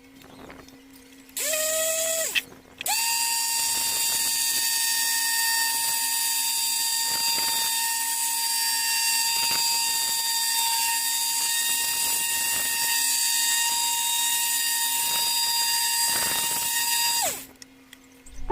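Small electric power tool motor running: it starts with a rising whine about a second and a half in and cuts out briefly. It then starts again and runs at a steady high whine for about fourteen seconds before winding down near the end.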